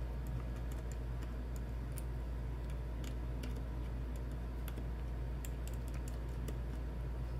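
Scattered light clicks of a precision screwdriver working tiny pentalobe screws out of a laptop's antenna assembly, over a steady low hum.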